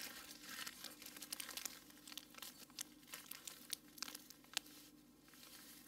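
A clear plastic bag of cremated ashes crinkling faintly as it is handled and turned in the hand, with irregular small crackles throughout.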